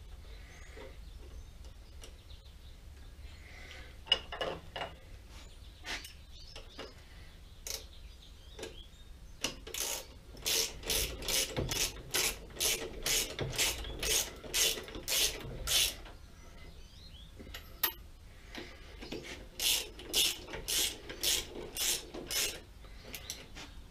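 Socket ratchet wrench with a 7/8-inch socket turning nuts on a lathe's clutch: two runs of quick, even ratchet clicks, the second shorter, after a few scattered knocks of the socket being fitted.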